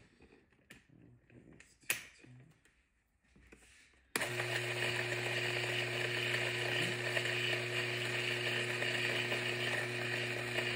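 After a few faint handling knocks, an electric burr coffee grinder's motor switches on suddenly about four seconds in and runs with a steady hum and whir. The grinder is running but not grinding the beans.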